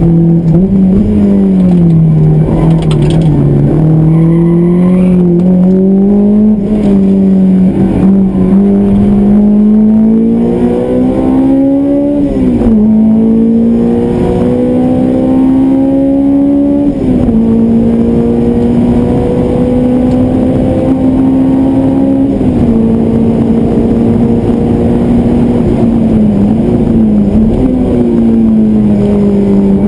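Honda S2000's four-cylinder VTEC engine, with an aftermarket exhaust, heard from inside the cabin under hard acceleration on track. Its pitch climbs through the revs and drops sharply at upshifts about twelve and seventeen seconds in, with a brief dip near the end.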